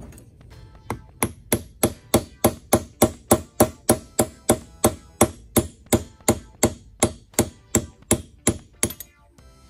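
A hammer taps a ground-down nail, used as a punch, in a steady run of about two dozen sharp strikes, about three a second. The strikes drive the roll pin that retains the spider-gear shaft out of a Dana 44 differential carrier. The tapping starts about a second in and stops shortly before the end.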